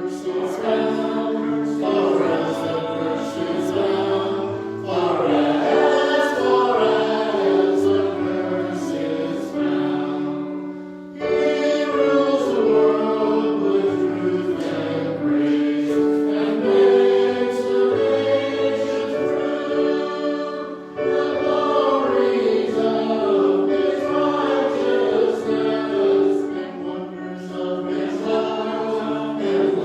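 Choir singing in several parts, with short breaks between phrases about 11 and 21 seconds in.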